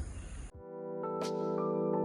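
Background music fading in after about half a second of faint outdoor ambience: sustained keyboard chords that grow louder.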